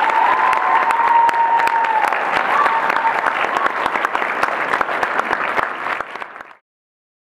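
An audience clapping in applause at the close of a talk. A steady high tone is held over it for the first few seconds, and the clapping cuts off suddenly near the end.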